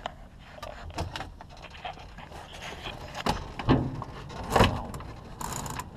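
A Cessna 172's front seat being moved and a person leaning into the cockpit: a series of knocks, clunks and rustling, with two louder thumps about three and a half and four and a half seconds in.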